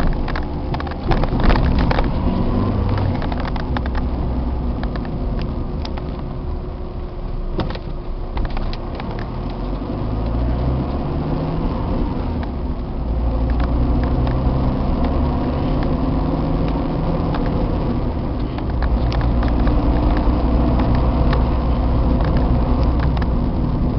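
Car engine and road noise heard from inside the cabin on a rough, potholed street, with frequent knocks and rattles as the car goes over the bumps. The engine rises in pitch as the car picks up speed a little before the middle.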